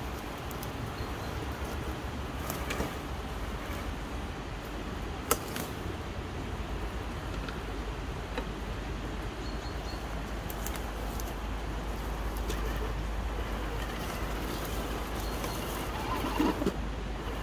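Absima Sherpa RC scale crawler creeping over dry leaf litter and twigs, with scattered sharp crackles and snaps from the ground under its tyres. Underneath is a steady low rumble of wind on the microphone. Faint bird chirps can be heard, and a short, low, dove-like coo comes near the end.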